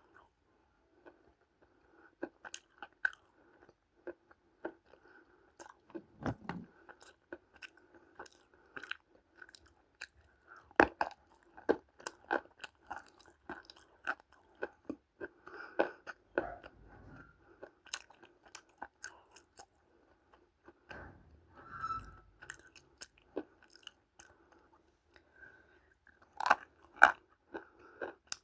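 Dry chunks of multani mitti (fuller's earth clay) being bitten and chewed close to the microphone: irregular sharp crunches and crackles, coming in clusters.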